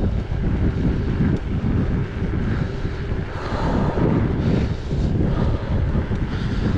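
Wind buffeting the microphone of a handlebar-mounted camera on a moving mountain bike, a steady low rumble with the noise of the tyres on the paved road.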